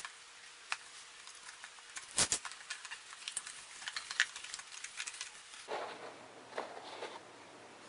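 Cardboard product box being handled and opened by hand: faint scrapes and small clicks, a sharper click about two seconds in, then a stretch of soft rubbing against the cardboard near the end.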